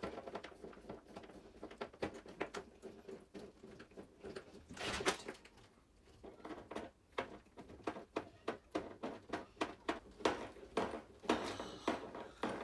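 Small hand tools and plastic and metal RC-truck suspension parts clicking and tapping as they are handled and worked on a bench, with a brief scraping rustle about five seconds in.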